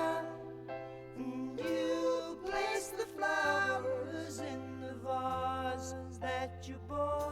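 A song: a sung vocal line over held bass notes that change about every two seconds.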